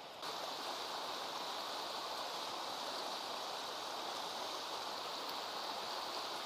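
Steady rushing of a fast-flowing river over rapids, the water noise stepping up just after the start and then holding even.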